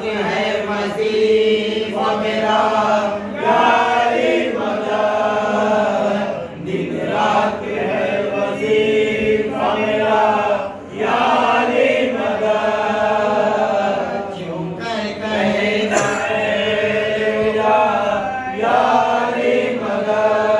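Male voices chanting an Islamic devotional recitation in a melodic chant, led by one voice at a microphone, in phrases of a few seconds with brief breaks between them.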